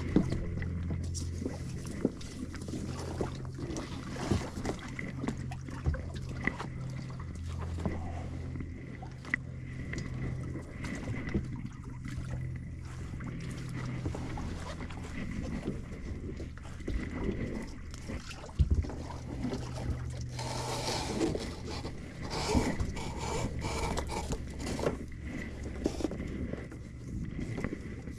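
Small boat knocking and rubbing against the hull of a sailboat as it is pulled along by hand, with scattered sharp knocks, a rope being handled and a low steady hum underneath.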